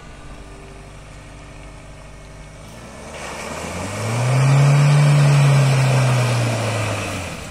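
Mahindra Thar 4×4 driving through muddy water: its engine is faint at first, then from about three seconds in grows loud as the vehicle revs and churns through the mud close by, with a rush of tyre and water noise, easing off near the end.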